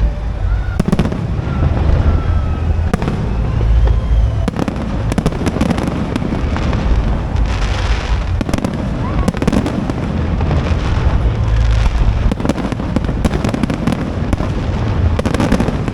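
Aerial fireworks display, heard throughout: repeated deep booms of shells bursting overlaid with dense crackling.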